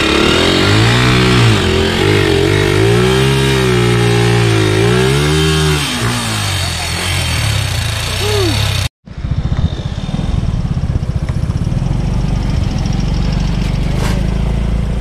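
Motorcycle engine revving up and down again and again, its pitch rising and falling every second or two. About nine seconds in the sound cuts off abruptly, and a steady, low engine rumble follows.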